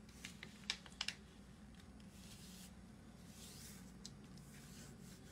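A sheet of paper being folded by hand on a cutting mat: a few sharp crackles of the paper in the first second, then two soft rubbing sweeps as fingers press the fold flat.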